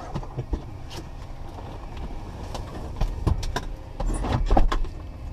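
Clicks, knocks and thumps in a Cessna 172's cabin as the front-seat occupants move about, with a louder low rumble about four seconds in.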